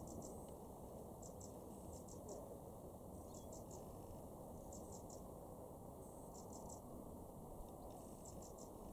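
Faint outdoor ambience: short high-pitched chirps in groups of three or four, repeating about once a second, over a steady low rumble.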